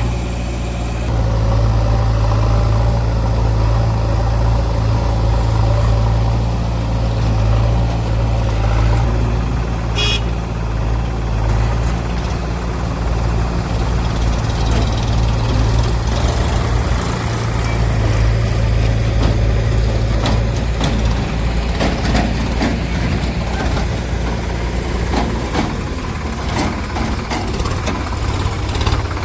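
Heavy diesel machinery engine running steadily at low revs. There is a single sharp click about ten seconds in, and irregular knocks and rattles in the last several seconds.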